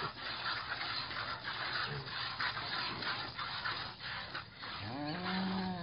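Piglet suckling at a cow's teat: rapid wet smacking and sucking, with rubbing and scratching against the cow's udder. About five seconds in, a brief call rises and falls in pitch.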